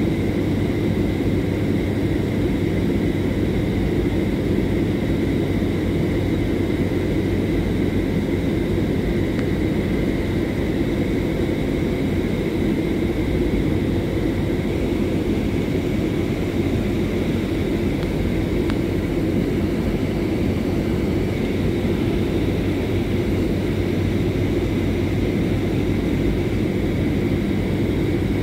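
Coach bus cruising on a motorway, heard from inside the passenger cabin: a steady drone of engine and road noise, with a faint steady high-pitched whine above it.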